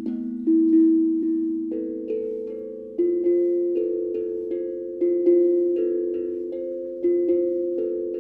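Steel tongue drum played with mallets in a slow melody: single struck notes, each ringing on and overlapping the next as it fades.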